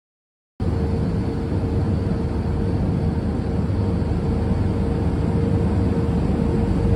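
Airliner cabin noise: a steady low rush of engine and air noise with a constant hum running through it, cutting in abruptly just over half a second in.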